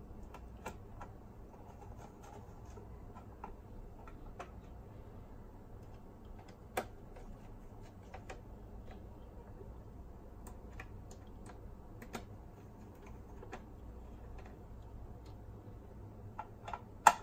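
Scattered small clicks and taps of a screwdriver and fingers against the plastic and metal parts of a boombox's cassette deck mechanism, over a low steady hum, with one sharper click near the end.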